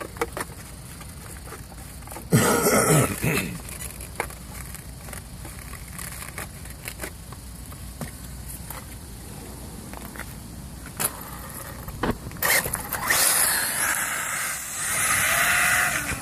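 Clicks and knocks of the buggy being handled, with a brief loud burst of noise about two seconds in. From about twelve seconds in, a 1/8-scale electric buggy with a Castle Mamba Monster X system and Neu-Castle 2200kv brushless motor on 6S drives off across asphalt, and its motor and tyre noise get louder.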